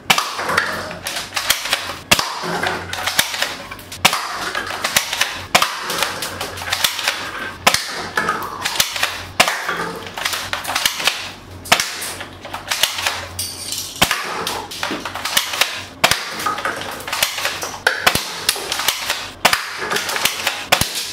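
Plastic toy airsoft rifle firing 6mm BBs again and again: a long run of sharp snaps and clicks from the gun, mixed with the BBs hitting the paper cup targets.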